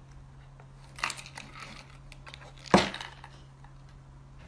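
A small cardboard box rustling and knocking on a wooden desk as a cat noses and paws at it: a rustling clatter about a second in and one sharp knock near the middle, over a steady low hum.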